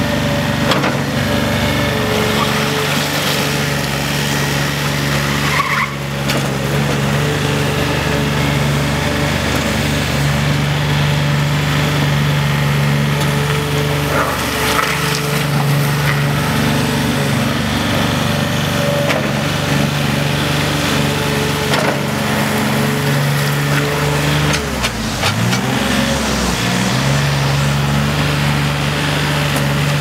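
Komatsu SK510 skid steer loader's diesel engine running steadily as the machine drives and turns. About 25 seconds in, the engine pitch briefly drops under load and then recovers. A few short clicks or knocks occur along the way.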